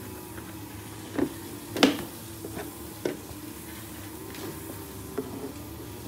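Hard plastic parts of a booster high chair knocking and clattering as the plastic tray is handled and taken off the seat: a handful of short knocks, the loudest a little under two seconds in. A steady low hum runs underneath.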